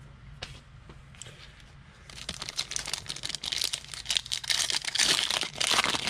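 The foil wrapper of a trading card pack being torn open and crinkled by hand. It starts about two seconds in and carries on as a dense, crackling rustle.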